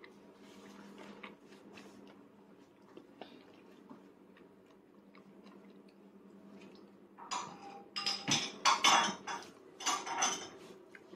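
Toddler eating mandarin orange segments by hand off a plate: small faint taps at first, then from about seven seconds in a few seconds of loud clattering and mouth noises against the plate.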